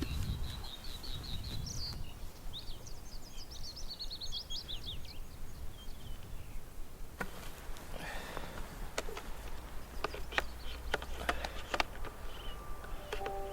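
Bluethroat singing close by: a quick run of repeated high notes, then a varied twittering phrase. In the second half, a series of sharp clicks with a faint rustle.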